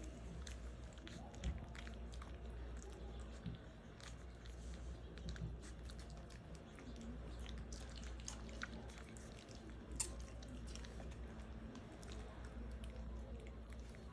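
Four-week-old Australian cattle dog puppies making wet smacking and chewing sounds: an irregular run of small clicks with a few sharper ones, over a steady low hum.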